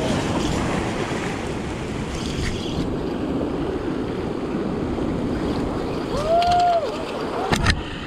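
Surf washing and churning over coastal rocks, with wind buffeting the microphone: a steady rushing noise. A short voiced exclamation rises and falls about six seconds in, and a few sharp knocks come near the end.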